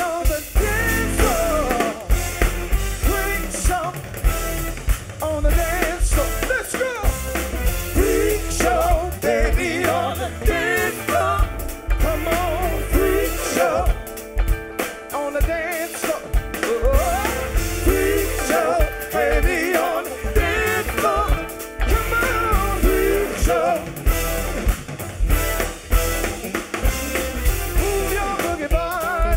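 Music: an up-tempo song with a singing voice over a drum kit and a heavy bass line.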